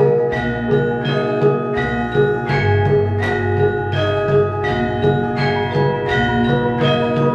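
Javanese gamelan ensemble playing: bronze keyed metallophones and gongs struck in a steady beat of about two strokes a second, with a deep gong note swelling in the middle.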